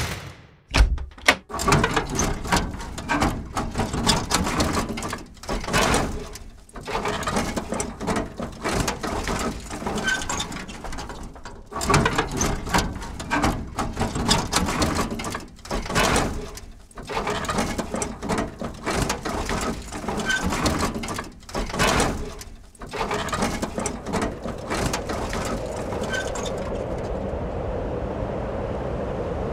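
Dense, irregular clattering and knocking. About 26 seconds in it gives way to a steady noise of surf.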